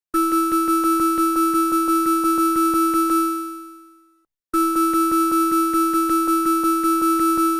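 Synthesized emergency alert alarm: a low and a high tone sounding together, pulsing rapidly at about six beats a second. It comes in two runs of about three seconds, each fading away, with a short gap between.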